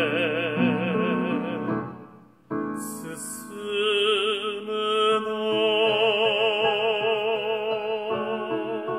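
Male voice singing long held notes with wide vibrato, without words, over piano accompaniment. The first note fades out about two seconds in, and after a short gap a second long note rises in and is held.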